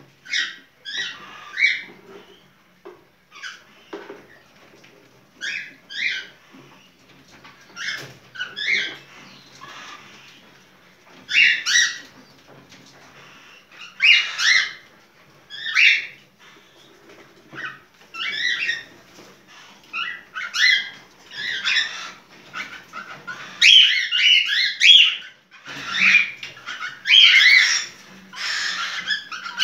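Cockatiel calling in repeated short, chirpy bursts, coming faster and louder toward the end: the bird's breeding-season (in-heat) calling.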